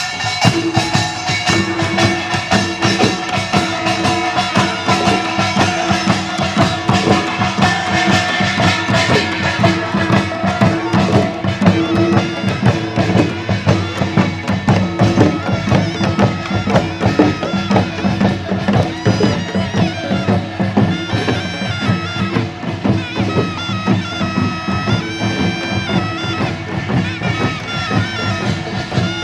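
Korean traditional folk music played live: quick, steady drum and percussion strokes under a loud, reedy wind-instrument melody that steps from note to note.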